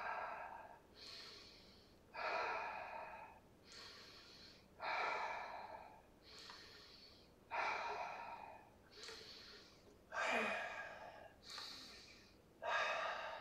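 A man's slow, deliberate breathing close to the microphone during a Pilates exercise: a long, louder breath alternating with a short, quieter one, about every two and a half seconds.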